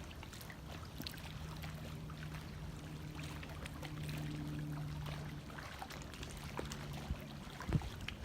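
Faint water lapping and trickling at the edge of the flooded lake, over a steady low hum that stops about a second before the end. A couple of short knocks follow near the end.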